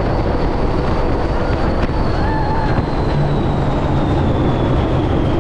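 Open-topped Test Track ride vehicle running at speed on its outdoor loop: a loud, steady rush of wind and rolling noise, with a high whine slowly falling in pitch.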